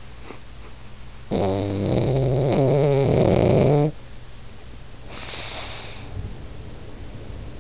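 Pug snoring in its sleep: one loud snore lasting about two and a half seconds, starting just over a second in, then a softer hissing breath a little later.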